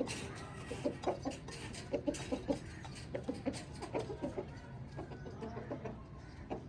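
Chickens clucking in short, quick runs of low calls over a steady low background hum.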